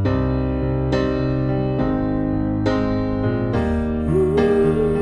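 Background music: a piano plays sustained chords, a new chord struck roughly once a second, and a held higher note joins about four seconds in.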